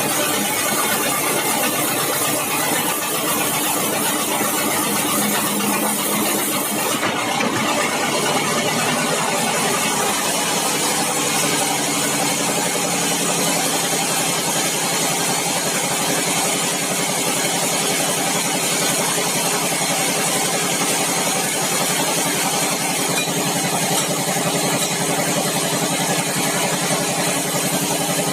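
Sawmill engine running steadily, with a small shift in its sound about seven seconds in.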